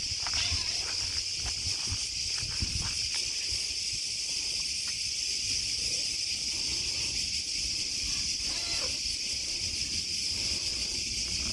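Cicadas singing in a steady, unbroken high-pitched drone, with a few faint soft rustles and clicks beneath it.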